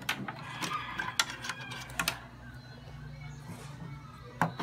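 A run of sharp clicks and knocks, about six in the first two seconds, over a low steady hum; the rest is quieter.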